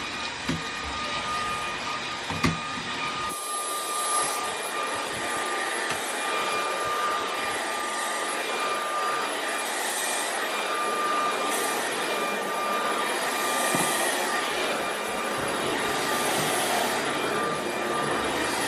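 Greenote GSC45 cordless stick vacuum running over carpet: a steady whirring rush of air with a constant whine. A few low knocks come in the first few seconds, and at about three seconds the sound turns hissier.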